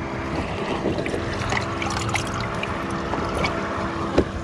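Water splashing and trickling in a collapsible fishing bucket as a hand works in it, with small scattered splashes. A steady low hum runs underneath.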